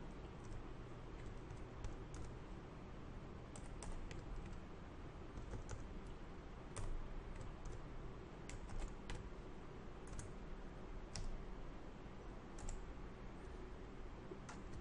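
Computer keyboard keystrokes: short clicks at irregular intervals, sometimes in quick runs and sometimes a second or more apart, as numbers are typed in.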